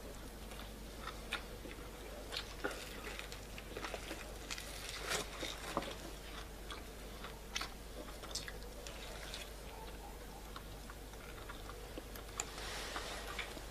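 A man eating roast meat noisily: chewing and biting, with scattered short smacks and clicks.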